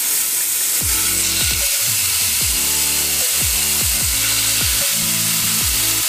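Oil sizzling in a nonstick pan as skewers of marinated potatoes fry, with a steady hiss, under background music.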